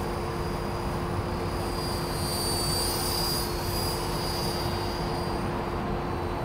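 Electric RC helicopter flying overhead, its motor and rotor giving a high-pitched whine that grows louder in the middle as it passes nearer, then eases off, over a steady low rumble.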